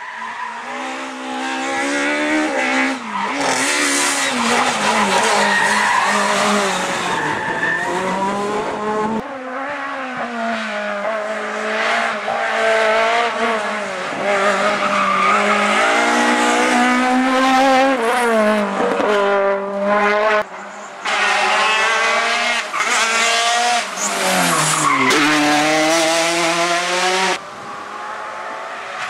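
Rally cars at full throttle passing in turn, among them a Citroën Xsara and a Honda Civic Type R. Each engine revs up hard and drops back sharply at the gear changes and lifts. Near the end only a fainter engine is heard.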